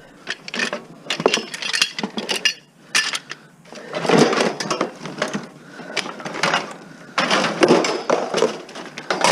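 Scrap metal clanking and rattling as pieces are handled and moved: a string of sharp knocks and scrapes, with louder, denser bouts about four seconds in and again near the end.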